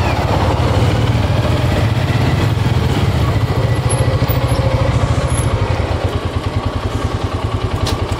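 Motorcycle engine running at idle: a low, even pulse that grows more distinct about halfway through.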